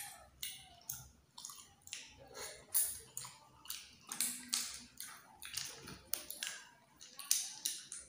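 Close-up eating sounds from freshwater snails in coconut sauce: a run of short wet clicks, smacks and sucks, roughly one every half second to a second.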